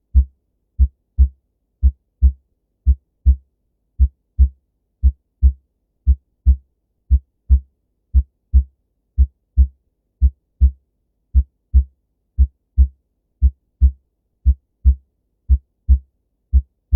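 Clear heart sounds in a steady lub-dub rhythm, a little under one beat a second. Each beat is a pair of low thumps with quiet gaps between the beats.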